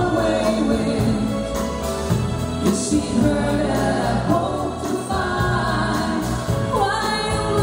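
A live pop band playing, with acoustic guitar, electric bass and drums under several voices singing together.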